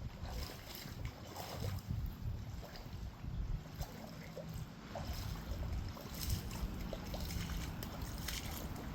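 Wind buffeting the microphone as a low, uneven rumble, with scattered faint ticks and taps.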